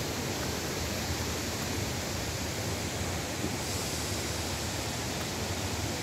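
Steady rushing wind noise buffeting the microphone, with a fluctuating low rumble.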